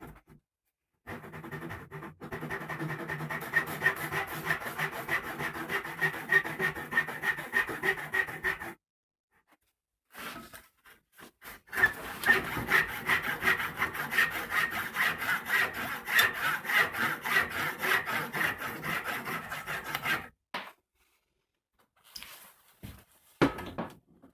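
Hand saw cutting through elm in two long bouts of quick back-and-forth strokes, the saw plate ringing faintly under the rasp of the teeth. A few short scrapes and knocks follow near the end.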